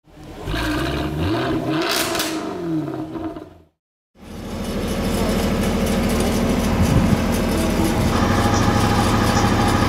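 A short intro sound effect of sweeping, rising and falling tones with a whoosh about two seconds in, cutting off shortly before four seconds. After a moment of silence, a modified ZIL-131 6x6 truck's engine runs steadily, with a brief rise in pitch about seven seconds in.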